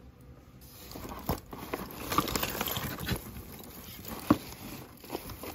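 A hand rummaging through a cardboard box of jewelry, beads and small trinkets: rustling with scattered clicks and clinks of items knocking together. The sharpest click comes a little past four seconds.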